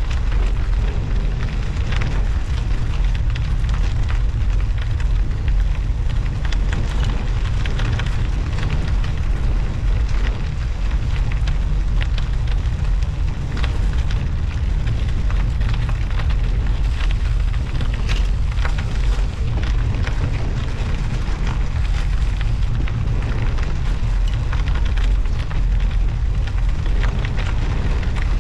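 Bicycle riding on a snowy road, picked up by a handlebar-mounted action camera: a loud, steady wind rumble on the microphone, with continuous crackling from studded winter tyres rolling over snow and ice.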